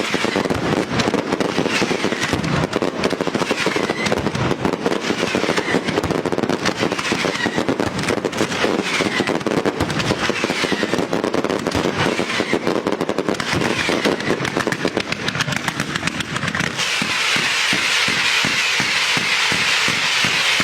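Fireworks and firecrackers going off: dense, rapid crackling and bangs throughout, with several falling whistles. Near the end it turns into a denser hiss with a fast, even pulsing.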